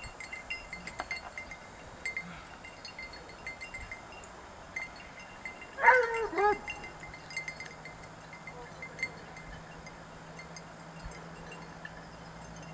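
Small bells tinkling irregularly. About six seconds in comes a short, high cry that falls in pitch, twice in quick succession.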